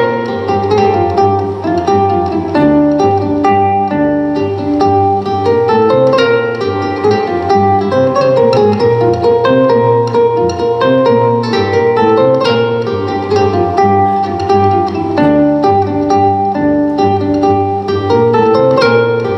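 Solo live music on a plucked string instrument: a steady stream of quick plucked notes ringing over sustained low notes.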